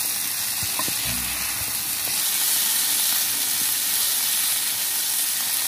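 Indian mackerel shallow-frying in coconut oil, a steady sizzle, with a couple of faint clicks about a second in.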